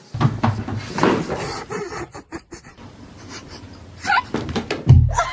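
A cat hissing and scuffling, with knocks, then short wavering cries about four seconds in and again near the end.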